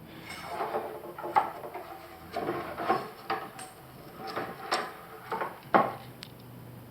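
Tent pole sections being handled as shock cord is fished through them and the pieces are fitted together: a string of irregular light clicks, knocks and short scrapes, with one sharper click near the end.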